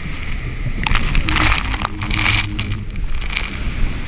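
Water rushing and splashing around an inflatable raft sliding down a water slide, with spray spattering the microphone over a constant low rumble. The splashing hiss grows louder about a second in and eases off near the end.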